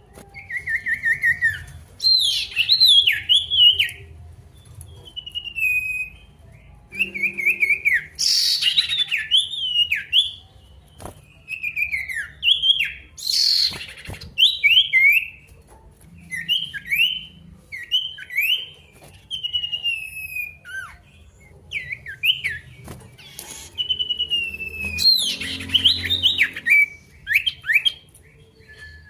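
A male sirtu singing at full song, calling out to rivals: phrase after phrase of short whistled notes that slide up and down, with brief pauses between phrases. A few harsh rasping bursts are mixed into the song, about eight seconds in, near the middle and near the end.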